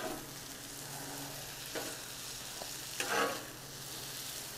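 Sausage slices, peppers and onions sizzling on a hot Cuisinart flat-top griddle while two metal spatulas scrape and toss them: a steady sizzle with a few scrapes, the loudest about three seconds in.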